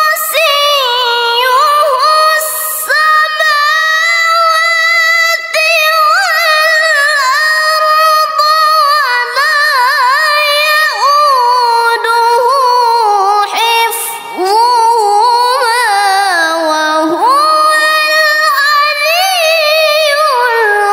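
A young female reciter's voice in melodic Quran recitation (tilawah), holding long high notes with rapid wavering ornaments. It breaks briefly about fourteen seconds in, then carries on.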